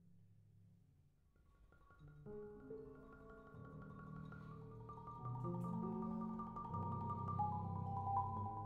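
Marimba and grand piano playing together: a soft fading tone at first, then marimba chords enter about a second and a half in and grow steadily louder.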